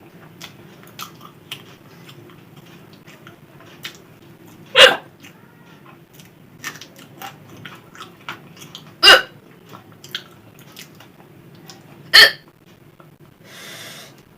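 A person hiccuping three times, each hiccup short, sharp and loud, about four and three seconds apart, with faint chewing clicks from eating between them.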